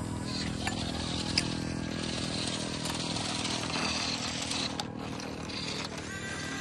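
Small electric motors and gearing of a toy RC excavator running with a steady buzz, with a sharp click about one and a half seconds in.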